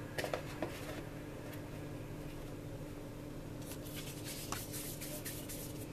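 Faint rubbing and soft rustling of floured hands pinching off and rolling balls of dough, with a few small clicks, over a low steady hum.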